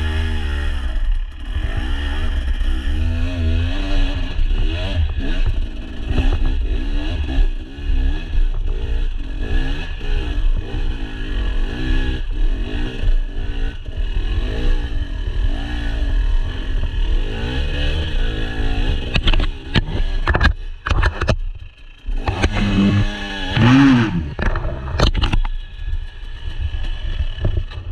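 Husqvarna dirt bike engine revving up and down as it climbs a rutted, rocky trail. Sharp knocks and clatter come from the bike over rough ground about two-thirds of the way through.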